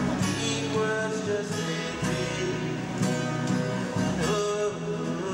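Acoustic guitar strummed in a steady rhythm under a sung melody: a busker's song.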